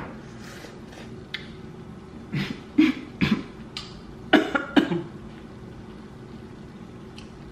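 A woman coughing in a short run of five or six sharp coughs and huffs, starting about two seconds in, just after tasting a hot spoonful of food.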